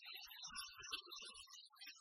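Faint background music of light, short notes, with a few soft low knocks in the middle as the plastic toy truck is handled on the table.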